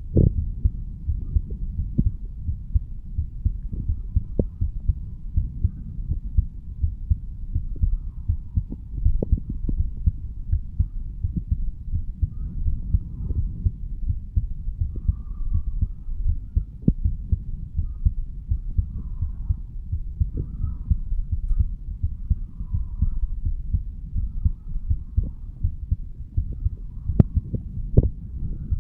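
A human heartbeat heard through the chest over the mitral valve area, repeating low thuds over a continuous low rumble. A couple of sharper clicks come near the end.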